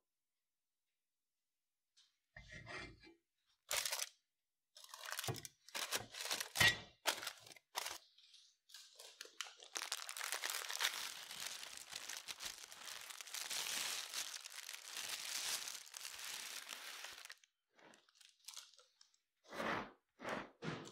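Kitchen handling sounds during bread making: a few knocks and crinkles, then about eight seconds of steady rustling and crinkling, and a few more short crinkles near the end.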